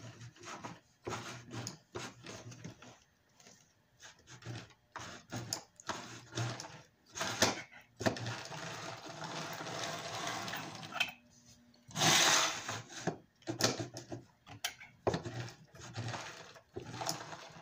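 Lionel 1065 toy locomotive's electric motor whirring in short, irregular bursts as the transformer throttle is worked, with a longer run about eight seconds in and the loudest burst around twelve seconds in. The motor is running despite flood damage.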